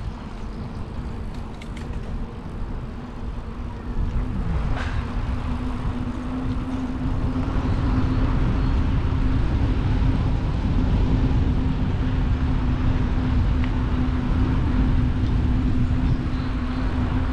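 Wind rumbling on the microphone while on the move, with a steady hum that comes in about five seconds in and grows a little louder.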